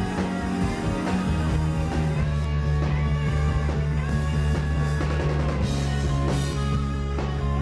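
Live rock band playing loud: two electric guitars over a drum kit, with sustained low notes underneath.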